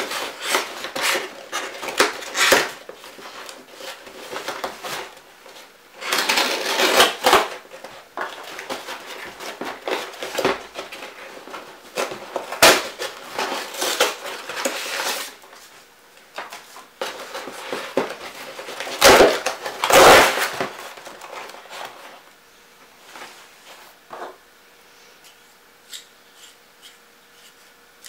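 Cardboard shipping box being cut open with a craft knife and unpacked by hand: cardboard scraping and tearing, flaps and paper rustling and crackling in irregular bursts, with quieter handling near the end.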